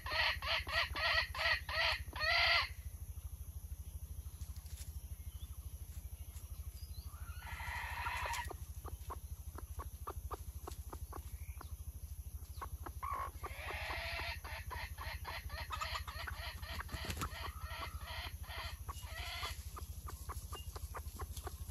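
Chickens clucking: a fast run of clucks, about four a second, ending in a longer drawn-out note. A single longer call follows about eight seconds in, and another run of clucks comes from about 13 to 19 seconds.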